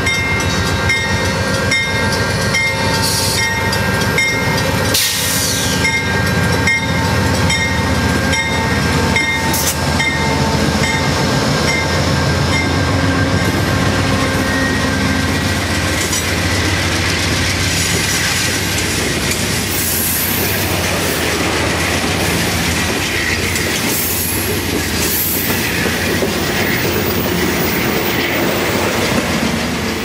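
An Amtrak GE Genesis diesel locomotive passes close by, followed by its passenger cars rolling past with wheels clicking over the rail joints. A crossing bell rings steadily through the first part. Some high wheel squeal comes later as the cars take the curve.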